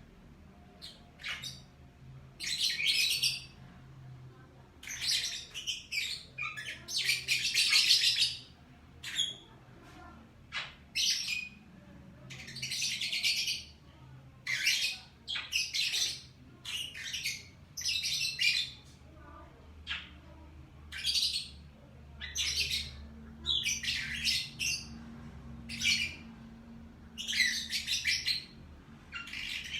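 Lovebirds chattering and chirping in shrill, raspy bursts, one after another with short gaps, over a faint low hum.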